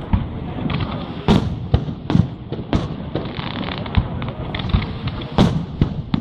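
Aerial fireworks display: a rapid series of loud shell bursts, about one every half second to second, over continuous crackling.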